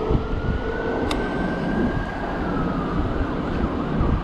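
A siren wailing: one slow rise in pitch over about two seconds, then a slow fall, over heavy wind and road noise on the microphone.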